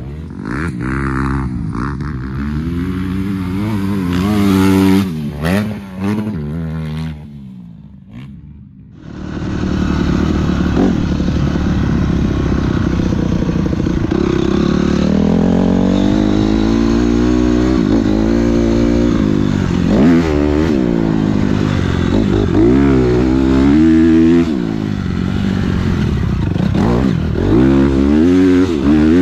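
Motocross dirt bike engine revving up and down repeatedly as it is ridden, with rushing noise. It drops away about seven seconds in, then comes back in strongly around nine seconds and keeps revving and easing off.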